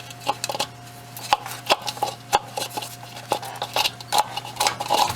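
Irregular light clinks and knocks of hard parts being handled as the lower fuel filter cover is worked out of its housing on a 6.0 Ford Super Duty diesel, with a faint steady hum underneath.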